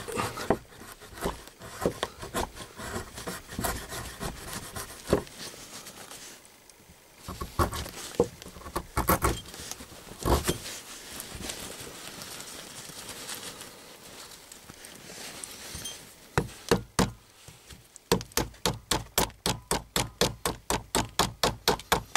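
A thick-bladed handmade knife carving shavings from a piece of wet wood: irregular scrapes and knocks of the blade on the wood. Near the end comes a quick run of short strokes, about four a second.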